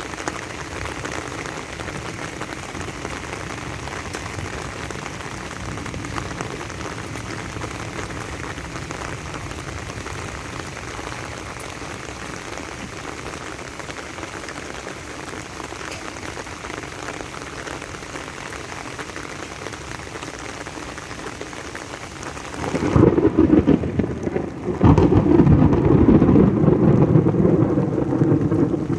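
Steady rain falling. About 23 seconds in, a sudden loud low rumble takes over and carries on to the end.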